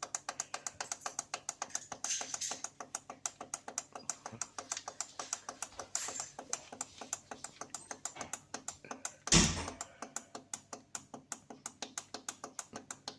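Beko washing machine's control panel sounding a rapid, even series of short beeps, about six a second, as the time-delay setting is stepped up toward its 24-hour maximum. A single louder thump comes about nine seconds in.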